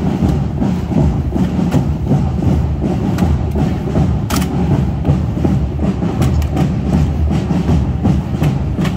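Spanish Legion soldiers marching at quick pace: a dense, rhythmic thudding of boots on wet stone paving, with sharp clacks from rifles being swung and handled in drill.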